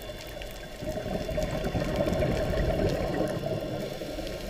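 Underwater sound picked up by a dive camera in its housing: a low, bubbling rush that swells about a second in and eases near the end, with faint crackles.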